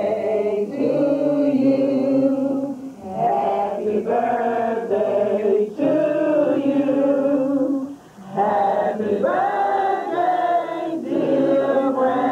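A small group of men and women singing together without accompaniment, in long held phrases with short pauses for breath between them.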